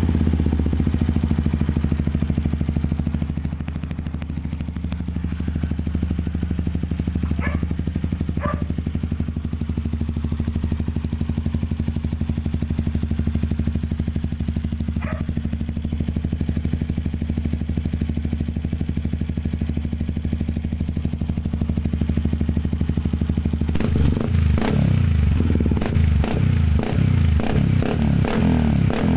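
Yamaha WR155R's 155 cc single-cylinder engine idling steadily through a Norifumi aftermarket exhaust pipe. About five seconds before the end the exhaust note breaks into uneven pulses.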